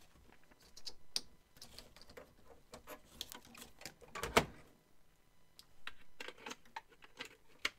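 Small clicks and rattles of plastic cable connectors and a metal-cased CD-ROM drive being handled in an open desktop computer case, with one louder knock about four seconds in.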